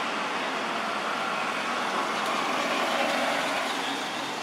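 Steady rushing noise of road traffic, slowly fading.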